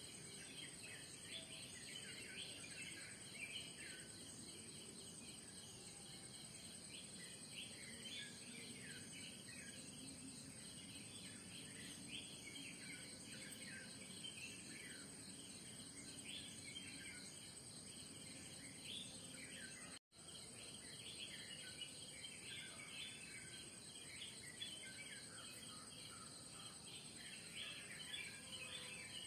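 Morning bird chorus: many small birds chirping and calling over a steady, high-pitched insect drone. The sound drops out for an instant about two-thirds of the way through.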